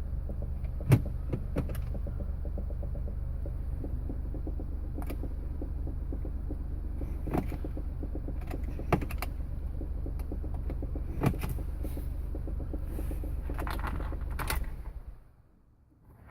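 A car's steady low hum with scattered clicks and knocks over it; the hum cuts off about a second before the end.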